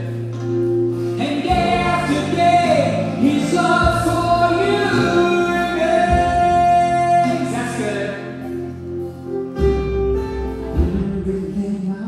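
Gospel worship song: sung vocals over sustained bass and keyboard chords that change every few seconds.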